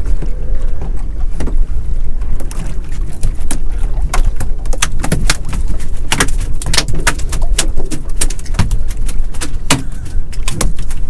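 A freshly landed conger eel thrashing in the bottom of a small boat: a run of sharp, irregular slaps and knocks that starts about two seconds in, over a steady low rumble.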